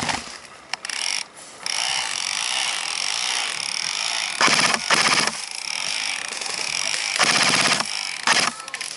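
Airsoft rifle firing short full-auto bursts, a fast even rattle of shots, about halfway through and again near the end, over a steady hiss.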